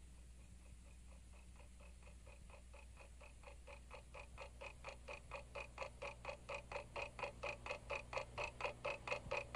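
Clock ticking fast and evenly, fading in from near silence and growing steadily louder from about four seconds in.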